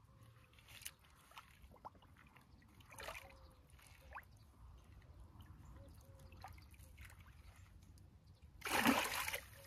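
Faint trickling and dripping of water with a few small splashes, then a louder burst of splashing near the end, as a carp is released back into the water.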